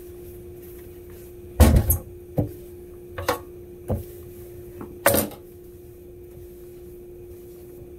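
A handful of knocks and thumps from handling things at a kitchen counter while dumpling dough is being mixed, the loudest about one and a half seconds in and another about five seconds in, over a steady low electrical hum.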